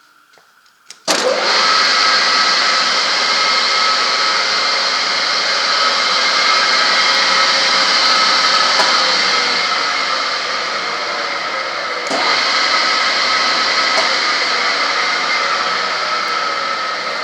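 Howa Sangyo L-150 engine lathe switched on about a second in, its motor and headstock gears then running steadily with a high whirring whine. A click and a brief dip come about eleven seconds later, and it runs on afterwards.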